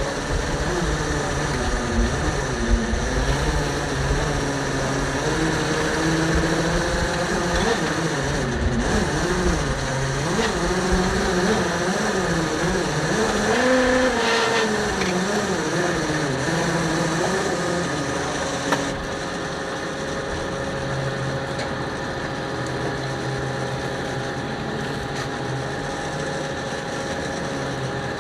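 A small fishing boat's engine running while the net is hauled in. Its pitch wavers up and down for the first eighteen seconds or so, then settles to a steady hum.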